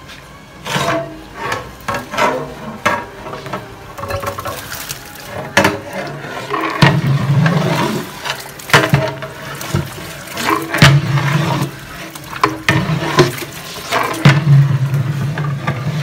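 Water pouring and splashing into a large cooking pot in uneven gushes, with repeated sloshing splashes.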